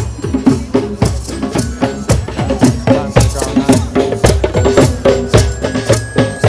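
A drumming group playing a steady beat, with rattling percussion and held melody notes over the drums.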